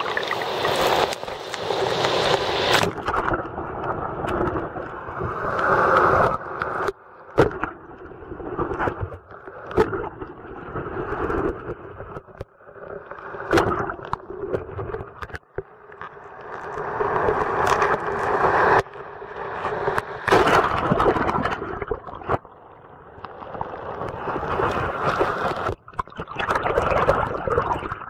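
Breaking surf and churning seawater heard through a waterproof camera's built-in microphone at and below the waterline. Open, hissing wash for about the first three seconds, then a muffled underwater rush that swells and falls with each wave, with scattered knocks and scrapes.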